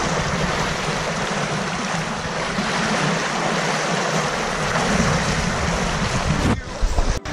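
Steady rush of a fast-flowing river as people wade across it, water splashing around their legs. It cuts out abruptly near the end.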